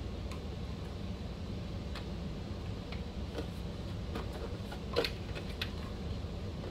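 Scattered small clicks and taps of plastic and metal as body clips are pushed onto the snug body pins of an Arrma RC car. The loudest click comes about five seconds in, over a low steady hum.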